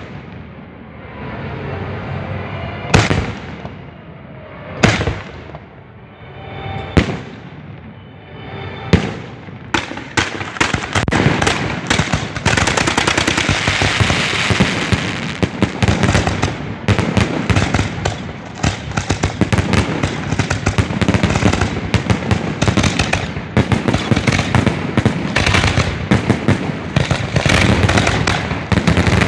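Professional fireworks display heard up close from the firing site: single sharp shell reports about every two seconds, then from about ten seconds in a dense, rapid barrage of reports that keeps on, typical of a grand finale.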